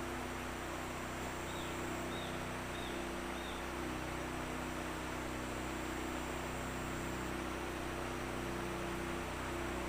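Steady low hum of a small boat motor over an even background hiss, with four faint short chirps between about one and a half and three and a half seconds in.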